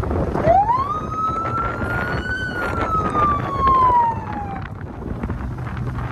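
Electronic siren fitted to a private vehicle sounding a single wail: the pitch sweeps up quickly, climbs a little more, then falls away and cuts off about four and a half seconds in, over the steady noise of the vehicle.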